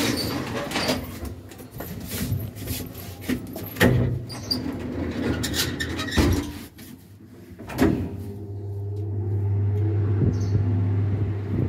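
Clanks and rattles of a lift's collapsible metal grille gate being handled and slid shut. About eight seconds in, the elevator starts with a steady low hum as the car runs.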